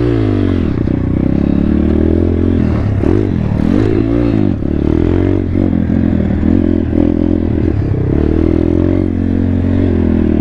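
2019 Thumpstar 140cc pit bike's single-cylinder four-stroke engine being ridden, its pitch rising and falling again and again as the throttle is opened and closed, then holding steadier near the end.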